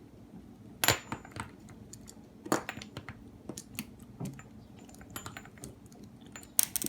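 Small metal clicks and clinks of hand tools on the handle of a Van Staal VS200 spinning reel as the knob's screw is worked on: scattered sharp taps, with a quick cluster of them near the end.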